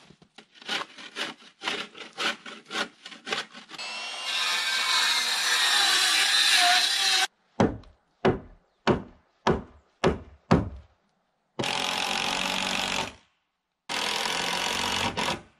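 Wood framing carpentry. It opens with quick strokes of a hand saw through a board, about three a second, then a power tool runs steadily for about three seconds. After that come six hammer blows about half a second apart, and near the end a power tool runs twice, about a second and a half each time.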